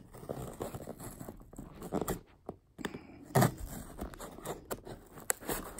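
A knife blade sawing and scraping through the tape seal on a cardboard box, with a few louder strokes along the way.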